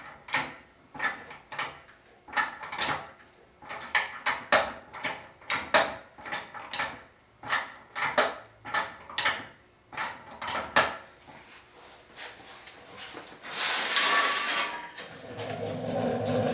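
A jack being pumped under a transmission: a regular run of short mechanical clicks, about two a second, stopping after about eleven seconds. Near the end a louder rough scraping or rubbing noise starts.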